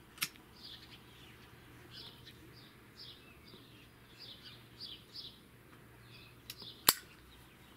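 Small songbirds chirping, a scatter of short high falling notes repeated every half second or so. A sharp click sounds near the end, with a smaller one just after the start.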